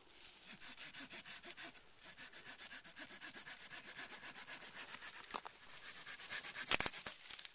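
Small hand saw cutting through a dead sapling for firewood, in quick, even back-and-forth strokes, about five a second. A sharp crack comes near the end.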